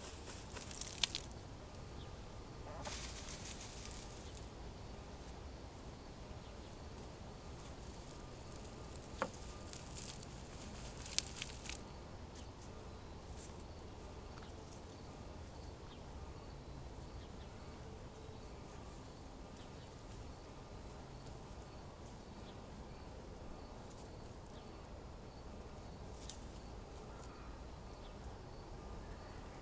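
Hens dust-bathing: a few short bursts of scratchy rustling as they shake and flick loose, dry soil through their feathers, mostly in the first twelve seconds, then only a faint low background.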